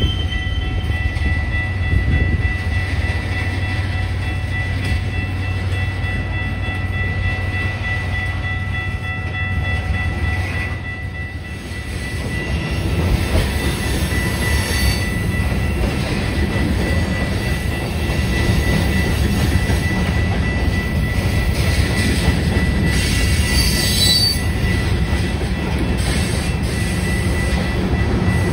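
Covered hopper cars of a freight train rolling past with a steady rumble and a thin, steady wheel squeal. Near the end the sound of a mid-train diesel locomotive's engine builds as it approaches.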